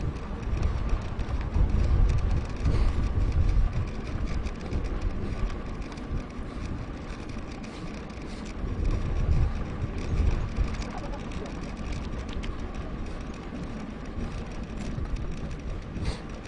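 Wind buffeting the microphone of a camera mounted on a moving mountain bike, an uneven low rumble that swells and eases every second or two, mixed with the hiss of the tyres on the road.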